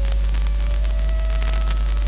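Orchestra holding soft sustained notes in a quiet stretch of a 1952 mono opera studio recording, under steady hiss and a loud low mains hum, with a few faint crackles.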